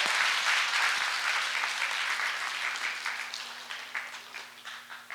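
Audience applauding, loudest at first and gradually dying away.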